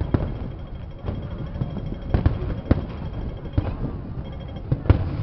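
Aerial fireworks display: distant shells going off in a string of sharp bangs at irregular intervals, about one or two a second, over a low continuous rumble.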